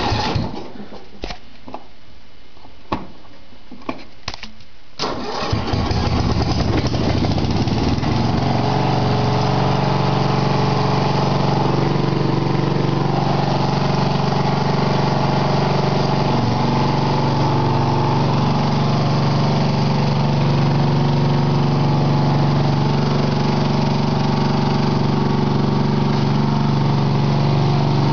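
A few separate clicks, then about five seconds in a lawn tractor's 12.5-horsepower Briggs & Stratton engine cranks on its newly fitted replacement starter, catches and settles into running steadily. The replacement starter is working.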